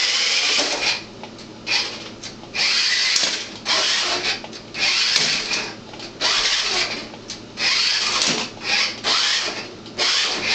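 Electric motor and gears of a remote-control toy car whining in repeated short bursts, about one a second, as the throttle is pulsed and the car drives back and forth.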